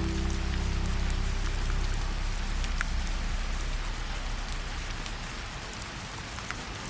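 Steady rain falling, an even hiss with occasional sharper drop ticks. Low held notes of soft background music fade out in the first two seconds.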